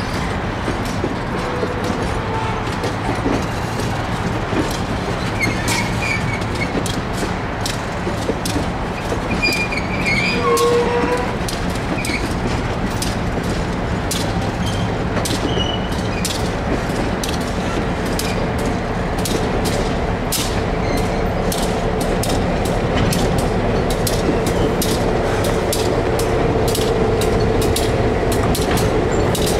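Ride noise inside a moving passenger train coach: a steady rumble and hum with rapid clicking of the wheels over rail joints, which comes thicker in the second half, and a steady mid-pitched tone that grows stronger in the last third.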